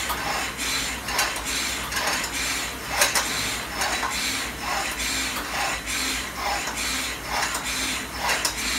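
Concept2 rowing machine's air flywheel driven by paddle strokes through its cables: a whirring rush that surges with each stroke, a little more than once a second, with light clicks.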